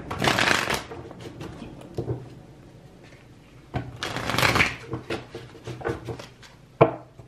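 A deck of tarot cards being handled and shuffled: two rustling swishes of the cards, each about a second long, near the start and about four seconds in, with light taps and clicks of cards between them and a sharper tap near the end.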